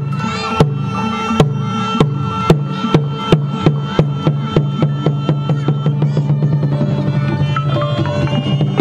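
Cambodian pinpeat ensemble playing shadow-puppet accompaniment: sharp drum strokes that quicken to about three a second, over held melodic tones.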